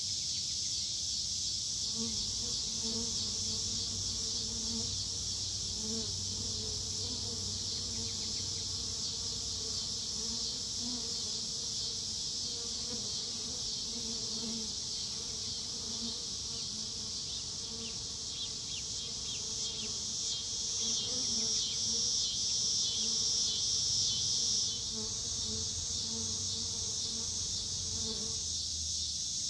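A flying insect's wings buzzing in a low, wavering hum, starting about two seconds in and stopping just before the end. Behind it runs a steady high-pitched trilling chorus of insects, which grows louder about two-thirds of the way through, then drops back abruptly.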